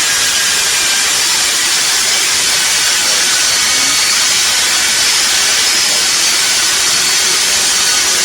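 Table saw running steadily, cutting a wooden trim board.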